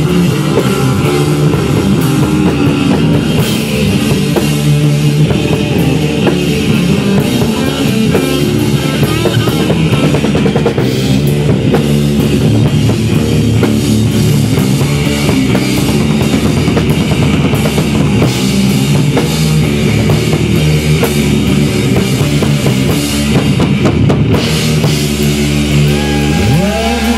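Three-piece rock band playing live: a drum kit with bass drum and cymbals driving a steady beat under electric guitar and bass guitar.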